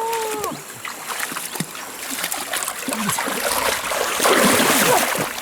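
Water splashing and trickling, with irregular small splashes that grow louder and busier in the second half. A short voiced call sounds right at the start.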